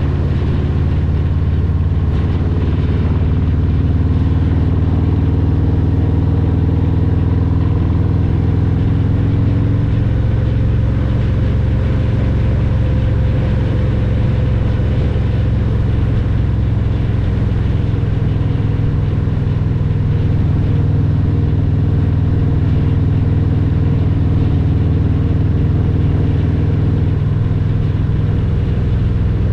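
Harley-Davidson Road Glide Special's Milwaukee-Eight 114 V-twin running steadily under way through a Vance & Hines Power Duals header and Cobra Neighbor Hater slip-on mufflers.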